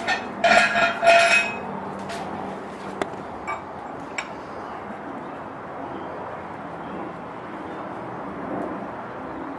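Metal parts and tools clinking and rattling against the compressor for about a second near the start, followed by a few sharp separate clicks, over a steady background hum.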